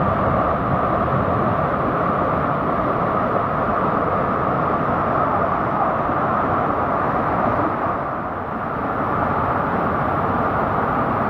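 Steady rush of a waterfall, dipping slightly about eight seconds in.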